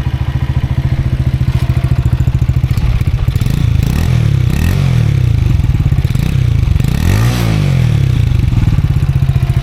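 Lexmoto Vixen motorcycle's single-cylinder 125 cc engine idling steadily, then revved up and down several times from about three seconds in, with the highest rev about seven seconds in, before settling back to idle.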